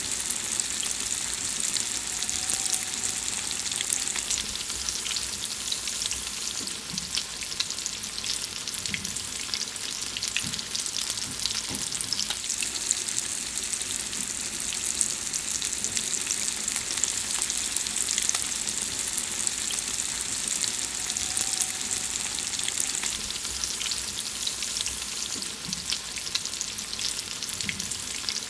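Food frying: a steady, dense sizzle of fine crackles and pops that does not let up.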